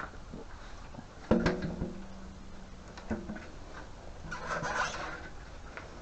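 Handling sounds of a motorcycle fuel tank being fitted back onto the frame. A sharp knock about a second in is followed by a steady low tone for about two seconds, with another knock, then rubbing and scraping near the end.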